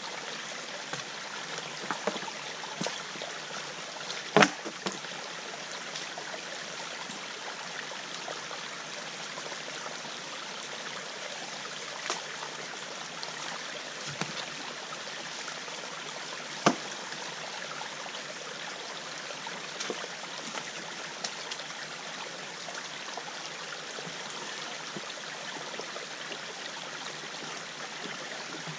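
Small stream running steadily over stones, a constant rushing trickle. A few sharp knocks sound over it, the loudest about four seconds in and another a little past the middle.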